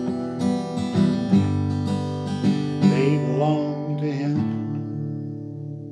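Acoustic guitar strummed, with a few sharp strokes. About two thirds of the way in it settles on a final chord that rings on and slowly fades.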